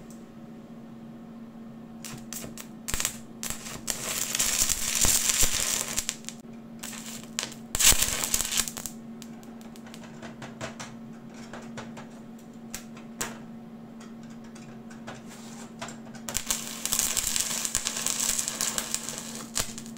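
Arc of a 3.2 mm aluminium stick electrode crackling and spitting in three bursts, about four, eight and seventeen seconds in, with scattered clicks between and a steady hum underneath. The stop-start arc fits an electrode that strikes poorly.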